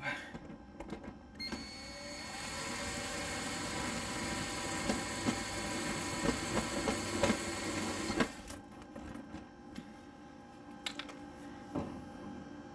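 Power drill with a hex nut-driver socket running for about seven seconds, driving the worm screw of a 4-inch hose clamp to tighten the dust collection hose onto the table saw's dust port. It stops suddenly, and a few clicks of handling follow.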